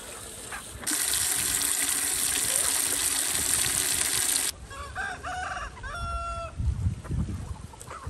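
A steady hiss starts about a second in and cuts off abruptly after about three and a half seconds. Then a rooster crows: a few short notes and a longer held final note.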